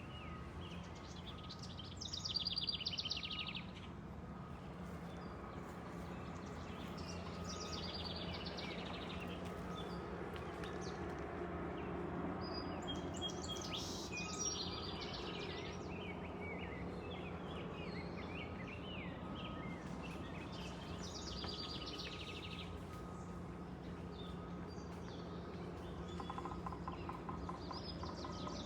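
Songbirds singing in short trilling phrases that come every few seconds, over a steady low background hum.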